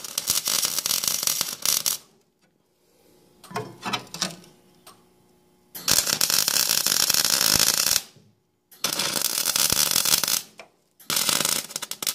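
Arc welder crackling in four short bursts of one to two seconds each, with brief pauses between them, as a thin steel patch is stitch-welded onto a rusted steel mower deck. A few faint sputters fall in the first pause.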